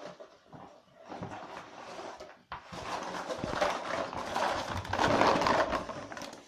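Pet ferrets playing: a busy scratchy scuffle of quick clicks and rustles, growing louder a few seconds in and stopping suddenly at the end.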